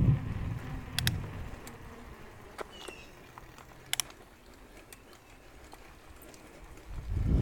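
Mountain bike rolling along a paved path: wind rush on the microphone fades away over the first couple of seconds, leaving quiet tyre noise with a few sharp clicks and rattles from the bike, including a double click about four seconds in. A short high chirp sounds about three seconds in.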